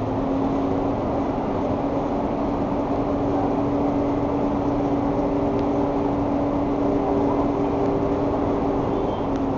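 TIG welding arc on a cracked chrome muffler end, a steady hum over a constant hiss that begins with a click just before and cuts off near the end as the arc is broken.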